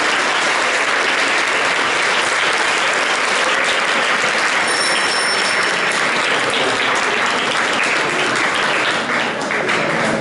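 Crowd applauding steadily: many people clapping at once.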